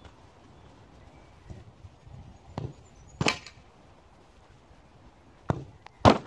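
A football being kicked on a grass lawn: sharp thuds, the two loudest about three seconds in and near the end, each with a fainter thud shortly before it.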